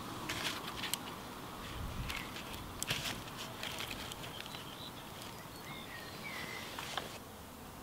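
Wood campfire crackling, with sharp snaps and pops that come thickest in the first three seconds and then thin out.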